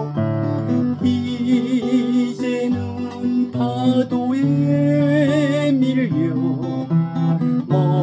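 Steel-string acoustic guitar playing picked chords, with a held melody line that wavers in pitch over it.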